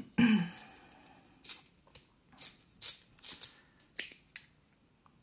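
A coloured pencil being sharpened: a run of about eight short scraping strokes, roughly two a second, after a brief murmur of voice at the start.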